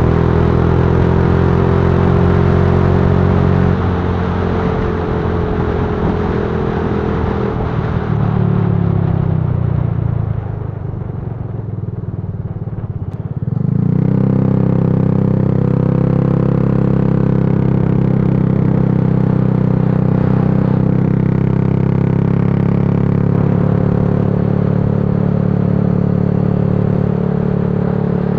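Yamaha Lagenda 115fi's single-cylinder four-stroke engine running while riding. About eight seconds in the pitch falls and it gets quieter as the throttle eases off, then about thirteen seconds in it comes back strongly and holds a steady pitch.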